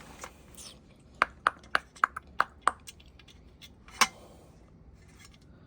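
Small metal parts of an exhaust fan motor clicking and tapping together as they are handled: a quick run of about seven sharp, ringing clicks, then one louder click about a second and a half later.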